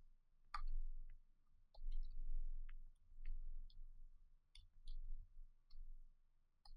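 Computer keyboard keys clicking as code is typed, about a dozen scattered, uneven keystrokes over a low rumble.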